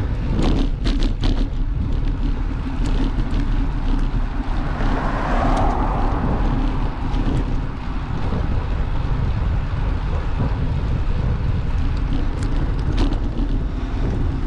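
Wind buffeting the microphone of a bicycle-mounted camera while riding, a steady low rumble, with traffic noise from the road alongside that swells about five seconds in. A few short rattles from the bike come near the start and again near the end.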